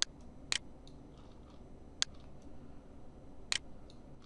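Computer mouse button clicking: four sharp clicks, two close together at the start, then two more about a second and a half apart.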